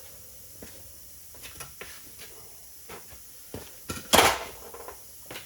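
Scattered knocks and clunks of hands-on work on a wheel, with one louder clatter about four seconds in.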